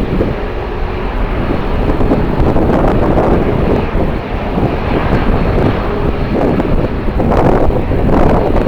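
Strong wind gusting and buffeting the microphone, over the steady noise of jet airliner engines.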